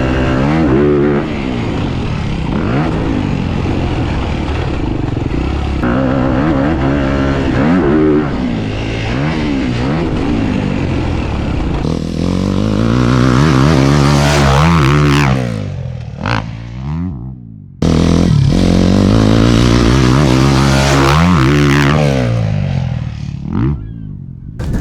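Dirt bike engine revving up and down, its pitch climbing and dropping again and again through the gears. It dies down about sixteen seconds in, then comes back suddenly at full run about two seconds later.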